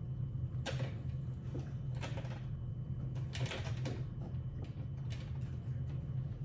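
Scattered soft knocks and rustles of things being moved about, a few in quick succession about three and a half seconds in, over a steady low hum.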